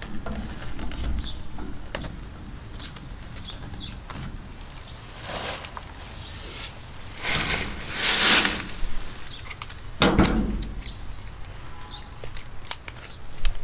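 Pipe wrap tape being peeled off its roll in several pulls of about half a second each, followed near the end by a couple of small snips as the tape is cut with scissors.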